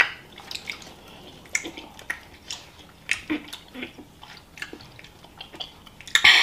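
Chewing and lip-smacking on gummy candy: a run of short, wet smacks and clicks, with a louder, sharper noise near the end.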